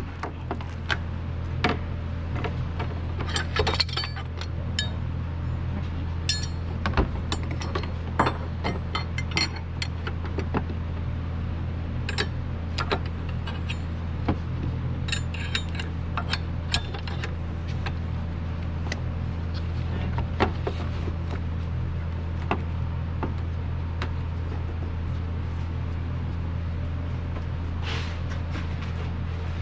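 Hand tools clinking and clicking against metal parts in an engine bay, in scattered sharp strikes over a steady low hum.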